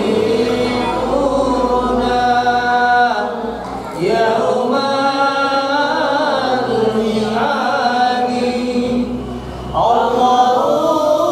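Men's voices chanting a Maulid devotional song in long, drawn-out melodic phrases, the held notes gliding up and down. A new phrase starts about four seconds in and again near the end.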